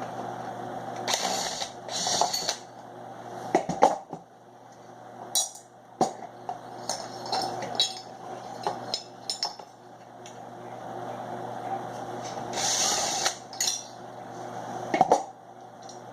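Metal ceiling-fan hardware clinking and knocking as a cotter pin, bolt and screws are worked out of the down-rod mount by hand, in scattered irregular clicks with a few brief rustling scrapes.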